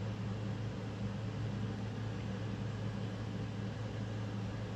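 Steady room tone: a constant low hum over an even hiss, with no distinct event.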